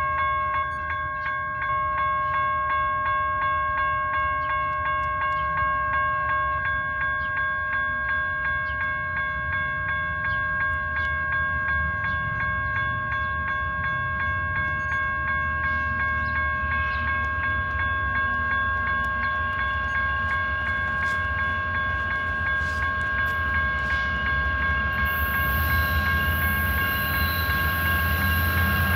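BNSF freight train's diesel locomotives approaching, a low rumble that grows louder near the end as the lead unit nears, with added high hissing rail noise in the last few seconds. A steady high-pitched tone sounds throughout.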